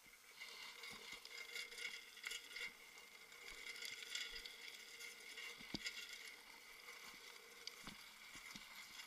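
Drift trike rolling fast downhill on asphalt: a steady hiss of wheels and rushing air, with scattered knocks and rattles from the frame over the road surface, several of them near the end.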